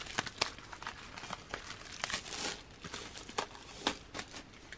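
Clear plastic wrapping from a CD album crinkling as it is handled, a run of short, irregular crackles.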